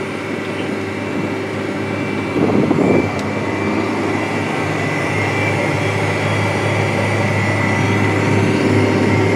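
John Deere 9360R four-wheel-drive tractor's engine droning steadily, heard inside the cab, with a thin steady whine above it. A brief louder rush comes about two and a half seconds in.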